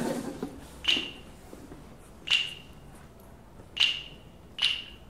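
Four sharp snaps, each with a short ringing tail, the first three about a second and a half apart and the fourth coming sooner: a slow count-in setting the tempo before the tuna's bolero starts.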